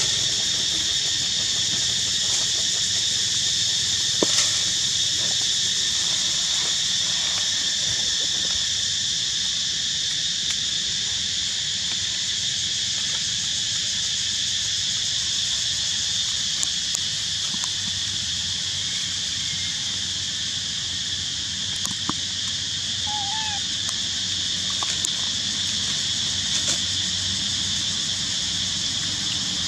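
Steady high-pitched insect chorus buzzing without a break, with a few faint clicks and rustles.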